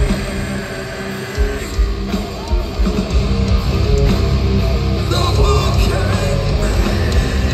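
Live heavy rock band playing loudly: distorted electric guitars, bass and drums with a sung vocal. The bottom end drops out briefly about a second in, then the full band comes back in.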